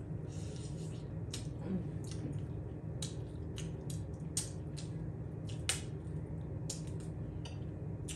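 Close-up eating sounds of crab legs being sucked and bitten: irregular sharp wet smacks and clicks of lips and shell, about a dozen, over a steady low hum.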